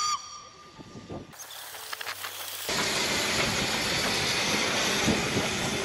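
Small steam locomotive standing at rest and hissing steam. A fainter high hiss begins about a second and a half in, and a loud, even hiss cuts in abruptly almost three seconds in.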